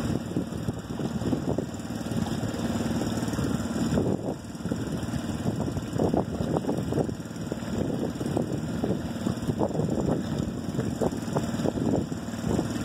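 Wind buffeting a phone's microphone, a rumble that swells and drops in uneven gusts, over a steady low hum.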